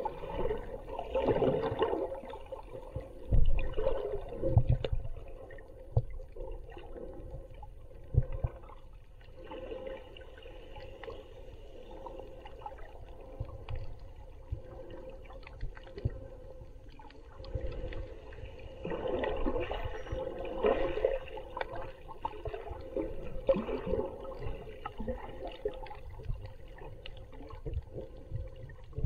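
Muffled underwater sound heard through a camera's waterproof housing: water sloshing and gurgling, with scattered low thumps. It is busiest in the first few seconds and again about two-thirds of the way through.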